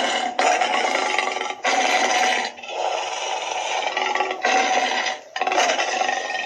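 Tyrannosaurus roar sound effect: a string of harsh, raspy roars, each about a second long, following one another with only short breaks.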